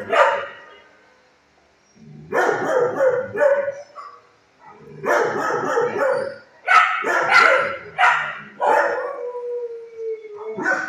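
Shelter dogs barking in volleys with short pauses, then one long howl near the end.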